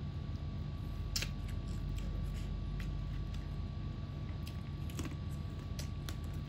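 Close-up chewing and mouth sounds of a person eating rice and fried chicken by hand: scattered wet clicks and smacks, the loudest about a second in and around five seconds in, over a steady low hum.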